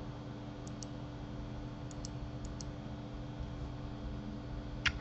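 Faint clicks from a computer mouse and keyboard: three quick pairs of clicks and a sharper single click near the end, over a low steady hum.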